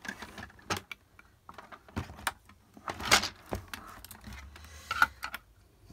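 Hard plastic toy-playset parts being handled and pushed together while a piece is fitted: scattered clicks, knocks and rattles, the loudest about three seconds in.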